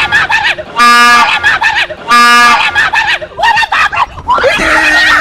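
Two short, very loud blasts of a train horn, about a second in and about two seconds in, each one steady note. People scream and shout between the blasts, with a longer scream near the end.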